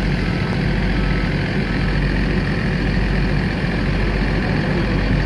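Heavy truck's diesel engine running steadily at low revs.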